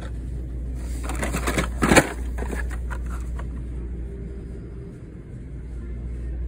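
Hot Wheels blister cards, plastic bubbles on cardboard backers, crackling and clicking as one is drawn out of the cardboard shipping case, with a run of crackles about a second in and the loudest snap near two seconds. A steady low hum sits behind it.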